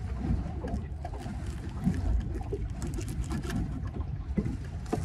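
Knife slicing a split into a piece of fish bait on a cutting board: faint, scattered small cuts over a steady low rumble of wind and water around a small boat.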